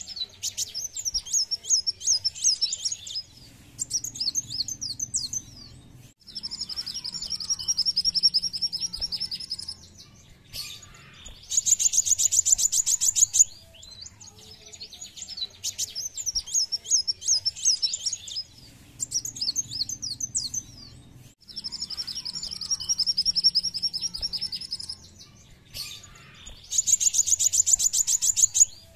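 Song of a kolibri wulung sunbird: bursts of high, rapid twittering and fast even trills in phrases a few seconds long with short gaps between them. The same run of phrases comes round again about halfway through, like a looped lure recording.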